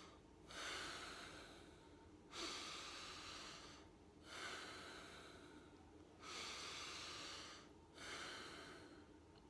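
Slow bhastrika pranayama: deep, forceful breaths through the nose, about five long breath sounds, each loudest at its start and fading away over a second and a half.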